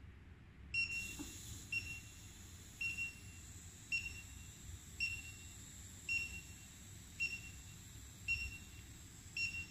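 COXO C-Puma Int+ electric dental micro motor control unit giving a short high beep about once a second, the warning that the motor is running in reverse, over a faint steady high-pitched tone.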